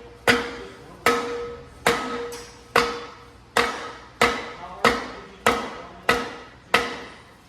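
A brake drum mounted backwards on a Ford 9-inch rear axle being struck about ten times at a steady pace, roughly one blow every 0.7 seconds, each blow ringing with a metallic tone. The blows are meant to drive the axle shaft out, and it is not yet coming free.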